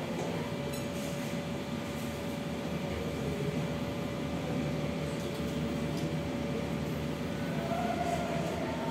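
Electric stand fan running steadily: an even low hum and rumble with one constant faint tone above it.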